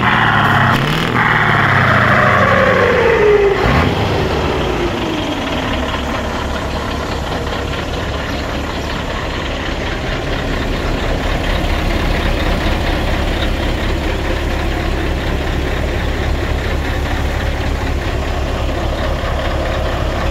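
Scania 143 500's V8 diesel engine revved, its pitch falling away over the first four seconds or so, then settling into a steady, throbbing idle.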